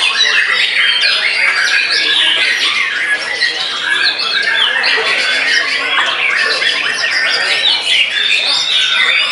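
Many caged white-rumped shamas (murai batu) singing at once in a songbird contest: a dense, unbroken chorus of overlapping whistles, trills and chattering calls.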